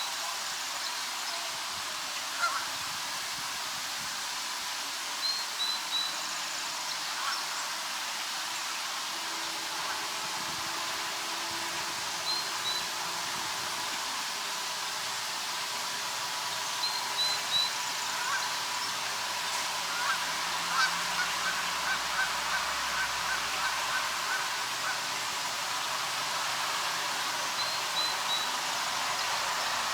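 Canada goose honking: single honks or short groups every few seconds, then a rapid string of honks about two-thirds of the way through.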